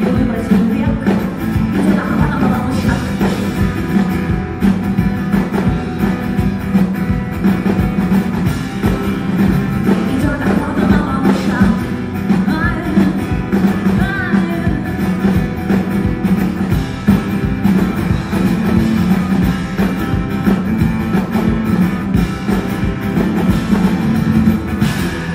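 Live acoustic rock song: a steel-string acoustic guitar strummed hard and steadily, with a woman's singing voice in places.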